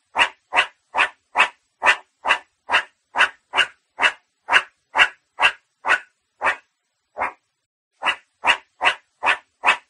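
Meerkat giving a fast run of short, sharp alarm barks, about two a second, with a brief pause a little after the middle.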